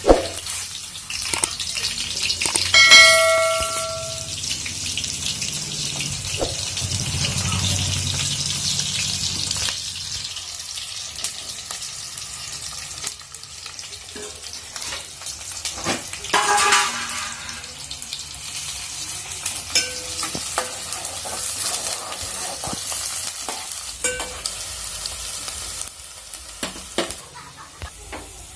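Curry frying in hot oil in a pan, a steady sizzle with the clicks and scrapes of a spoon stirring against the pan. There is a short ringing sound about three seconds in and another around sixteen seconds, and the sizzle grows quieter after about ten seconds.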